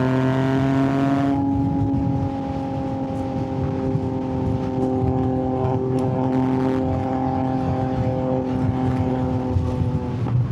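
Yamaha MT-09's inline-three engine pulling under way. Its pitch climbs briefly at first, then holds nearly steady as the bike rides on, with a gear change right at the end.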